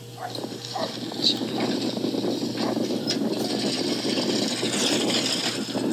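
Wind rushing over the microphone of a camera on a bicycle speeding down a dirt trail, building up over the first couple of seconds and then holding steady.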